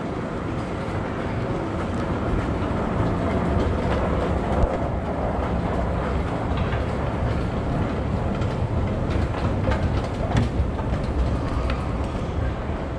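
Brussels Metro train rumbling steadily through the underground station, a little louder through the middle, with a few sharp clicks.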